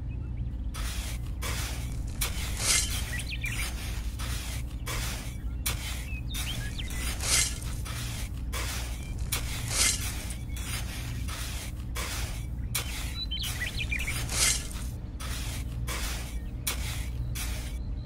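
A miniature toy shovel scraping and scooping through fine dry sand in a steady series of short strokes, about two a second, with a few louder scrapes. A steady low hum runs underneath.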